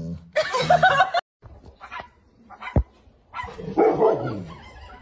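A German Shepherd gives a drawn-out, pitched "mhmm" moan while its head is rubbed with a wire scalp massager. After a sharp click a little past halfway, a dog barks and vocalizes again, its pitch falling.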